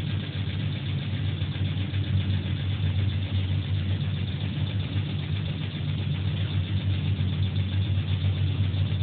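Machinery running with a steady low hum.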